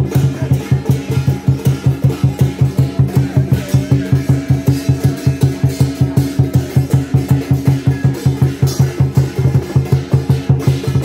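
Music with a fast, steady drumbeat, about six beats a second, over sustained low notes.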